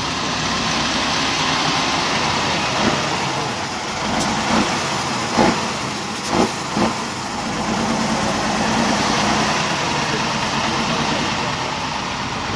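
Tatra 6x6 trial truck's engine running close by as the truck crawls past over rough ground, with a few sharp knocks about halfway through.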